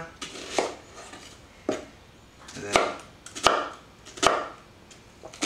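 Kitchen knife slicing through a red onion on a wooden cutting board: about six separate knocks of the blade against the board, roughly a second apart.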